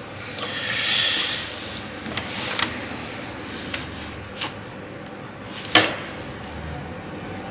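Small clicks and knocks of tools and test gear being handled on a repair bench, with a brief rustle about a second in and a sharper click a little before six seconds.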